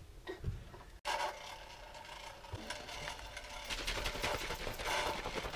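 Kitchen handling noises: a soft knock about half a second in, then a faint steady hum with light clicking and clattering of plastic containers that grows busier toward the end.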